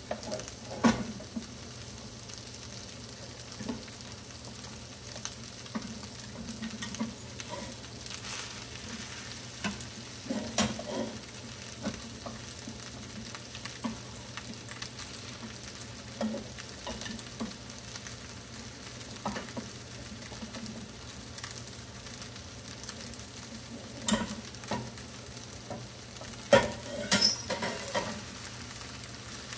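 Rice and vegetables frying with a steady sizzle in a nonstick skillet as cooked rice is spooned in and stirred, with scattered knocks and scrapes of spoon and wooden spatula against the pans, the loudest few near the end.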